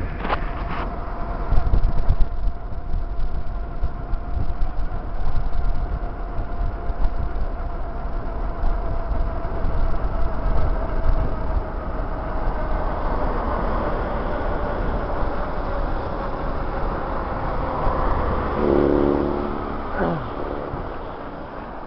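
Wind rumble on the microphone and road noise from a bicycle descending a highway at speed, with a steady hum that slowly drops in pitch. Near the end a car passes, its engine note falling as it goes by.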